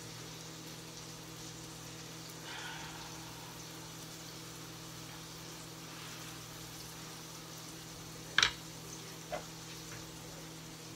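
Faint steady sizzle of buttered bagel halves toasting face down in a frying pan, over a low steady hum. A sharp knock comes about eight seconds in, with a lighter one a second later.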